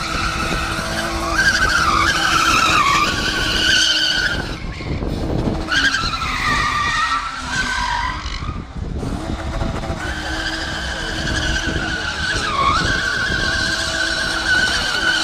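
BMW E36 coupe spinning donuts, its rear tyres squealing in a steady high screech over the running engine. The squeal dips in pitch now and then and breaks off briefly about four and a half and nine seconds in.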